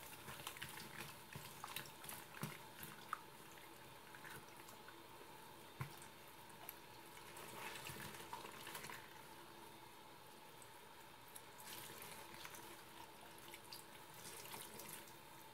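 A thin stream of tap water runs into a sink while a wet green rag is rubbed and squeezed under it, with small squelches and splashes. The whole is faint, with a few sharper clicks scattered through it.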